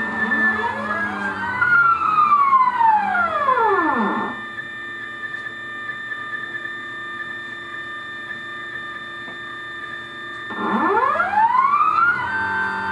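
CNC router's stepper motors whining as the gantry drives a pen plotter attachment across paper. Several tones glide up and down together as the axes speed up and slow down through curves, hold a steady pitch and drop a little in loudness for a straight run in the middle, then glide again about 10 seconds in before settling to a steady whine.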